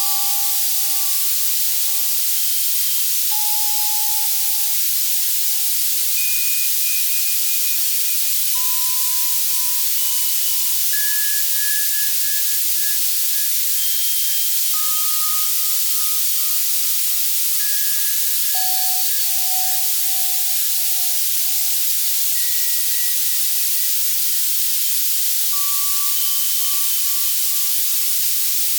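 Access Virus C synthesizer playing a steady white-noise hiss, strongest in the highs, as a tinnitus-masking sound. Soft bell-like tones sound over it one at a time, every second or two, at scattered pitches, each fading away.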